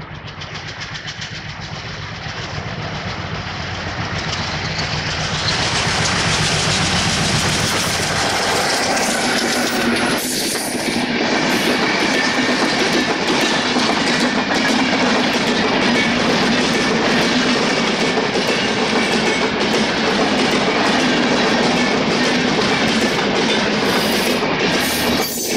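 A Bangladesh Railway intercity express passenger train passing at speed close by, its coaches' wheels running over the rails. The noise grows louder over the first several seconds as the train arrives, then holds loud and steady as the long rake of coaches goes by.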